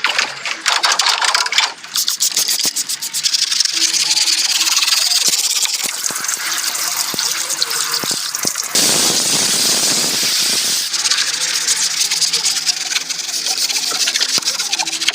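High-pressure cleaning jet spraying against a car, a steady loud hiss with spatter and small clicks, getting fuller for a couple of seconds past the middle.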